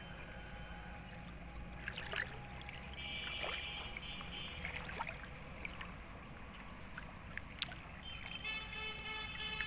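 Pond water sloshing and trickling, with a few small splashes and knocks, as someone wades waist-deep and handles a plastic tub in the water. A steady high tone with many overtones comes in near the end.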